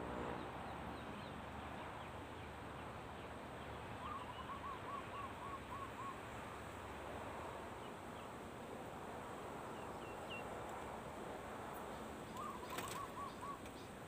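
Spotted dove cooing: two phrases of quickly repeated low coo notes, a longer one about four seconds in and a shorter one near the end, over a steady outdoor hiss. A sharp click comes with the second phrase.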